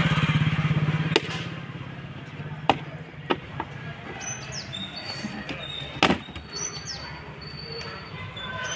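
Sharp clicks and knocks, about five in all and the loudest about six seconds in, as a screwdriver pries at the plastic clips of a car's front bumper. An engine's pulsing hum fades out within the first second or two, and small birds chirp throughout.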